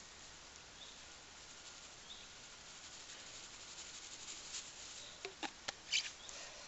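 Clear plastic bag holding laundry and rinse water being handled and shaken, crinkling faintly at first, then louder, with several sharp crackles near the end as the bag is lifted.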